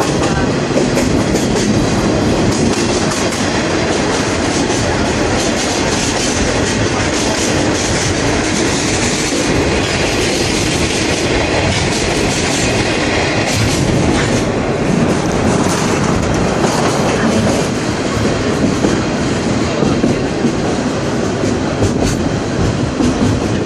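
Steady rail noise of a sightseeing train running, heard from an open-sided passenger car: wheels rumbling and clacking over the rail joints. The high hiss grows stronger partway through as the train passes through a tunnel, then eases off.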